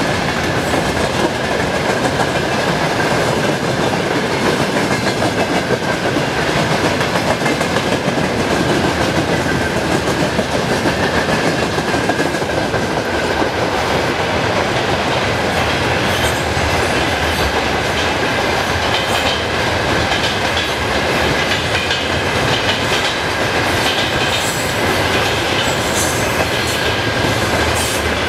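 A train rolling past close by, with a steady loud rumble and wheels clattering over the rail joints. A thin, steady high whine sits over the noise, and short high-pitched squeaks come in the second half.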